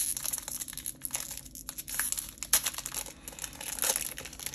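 Crinkling of a Magic: The Gathering booster pack's foil wrapper being handled and opened, in quick irregular crackles.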